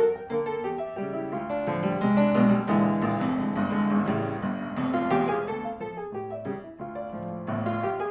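Background music: piano playing a melody over chords.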